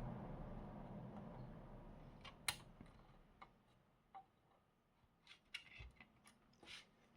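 Faint, scattered clicks of plastic retaining clips being prised loose while a TV is dismantled, with one sharp click about two and a half seconds in and a cluster of smaller clicks near the end. A low hum fades out over the first few seconds.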